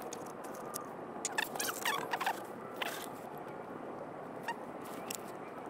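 Small clicks and knocks from handling fuel containers while mixing two-stroke gas, with a short squeaky, wavering sound about a second and a half in.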